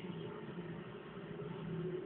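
Quiet room tone with a faint, steady low hum and light hiss; no distinct event.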